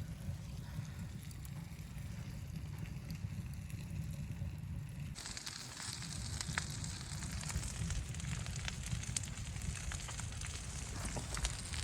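A low steady rumble, then about five seconds in a sudden change to the hiss and sharp pops of a fire crackling.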